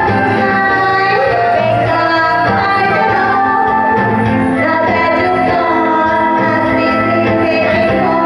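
A woman singing karaoke into a handheld microphone over a loud backing track.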